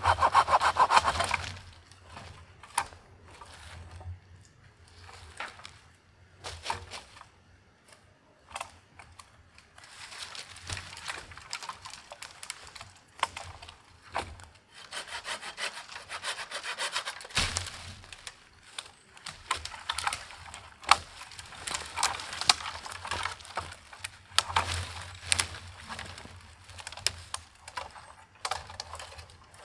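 Hand-sawing through thin wooden poles with a Silky saw: a loud run of rasping strokes at the start and longer stretches of sawing later on. Between them are scattered sharp cracks of wood and footsteps rustling in dry leaf litter.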